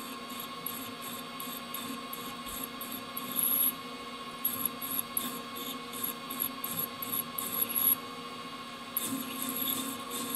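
Metal lathe running with a steady whine while a parting tool cuts into the spinning bar in short pecks, giving many brief high-pitched cutting noises that come and go. The stop-start cutting is the chip-breaking technique used when parting off. The cutting noises stop for about a second near the end, then start again.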